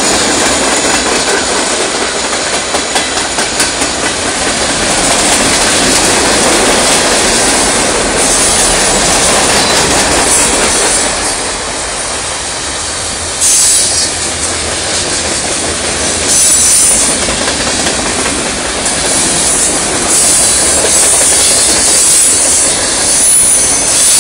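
Freight train cars rolling past close by: steady, loud rumble and rattle of steel wheels on the rails, with a stretch of regular clacks a few seconds in.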